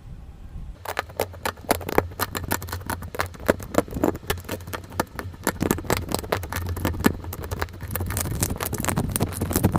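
Slime being squeezed and poked, giving a dense run of sharp clicking and popping sounds that start about a second in, over a steady low hum.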